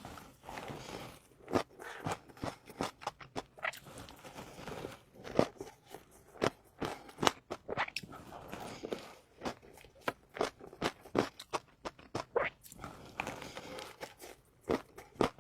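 A person biting and chewing food close to the microphone, with many sharp, irregular crunches and softer wet chewing between them.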